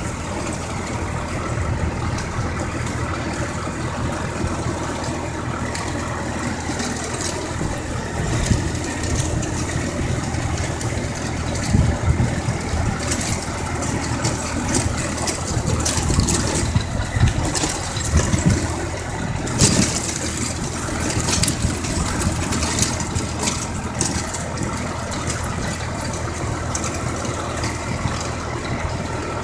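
Engine of a tractor ploughing a field, running steadily, with brief high-pitched sounds coming and going over it.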